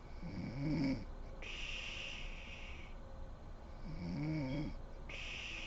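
A sleeping woman snoring: two pitched snores about three and a half seconds apart, the first the louder, with a hiss between them.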